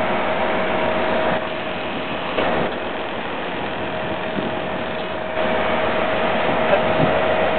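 Steady running noise of a fishing boat's engine with wind and water hiss, carrying a thin steady whine, a little quieter for a few seconds in the middle.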